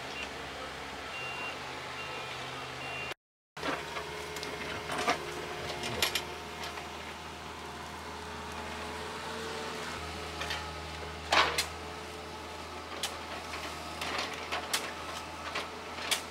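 Mini excavator's diesel engine running steadily as it digs, with scattered clanks and scrapes of the bucket and shovels in soil and gravel. The sound cuts out briefly about three seconds in.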